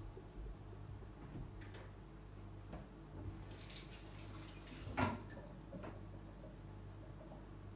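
Kitchen tap running briefly at the sink, with a single sharp knock about five seconds in and a few soft clicks.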